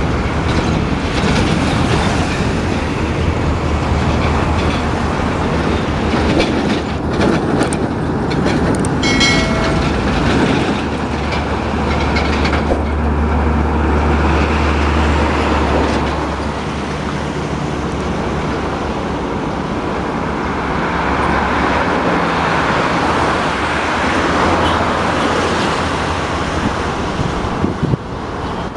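Heavy diesel trucks passing on a highway: a continuous engine drone and tyre noise. The deep engine note is strongest as a truck goes by, between about ten and sixteen seconds in. A brief pitched tone sounds about nine seconds in.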